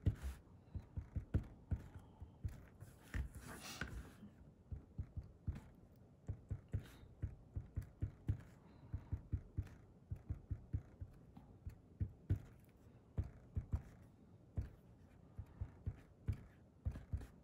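Fine-tip marker tapping dots onto cardstock on a craft mat: a long run of soft, irregular taps, often three or four a second. There is a brief paper rustle about three seconds in as the piece is turned.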